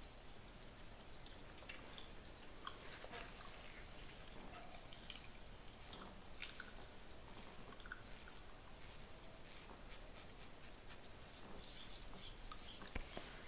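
Fingernails scratching through a beard: a run of short, crisp, high scratchy strokes at an uneven pace, thickest in the middle of the stretch.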